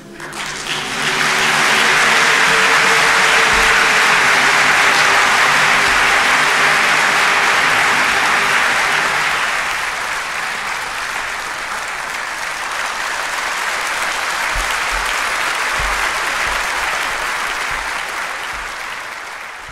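Large audience applauding, swelling within about a second and holding steady, a little softer in the second half. Under the first several seconds the choir's last held chord dies away.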